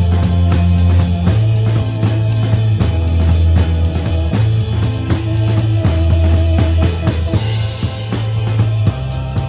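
Drum kit played along to a rock recording with guitar and bass, cymbal strokes keeping an even pulse of about four a second. The snare is damped under a cloth cover because it was too loud.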